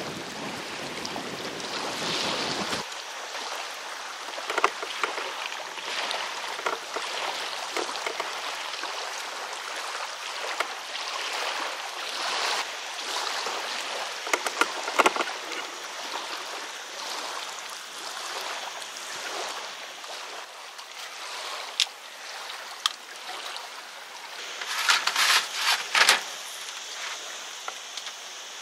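Steady outdoor hiss of wind and lapping lake water, with scattered knocks and clicks from handling metal awning poles and pegging out a guy rope. A burst of rattling clatter about 25 seconds in, as camping gear is handled.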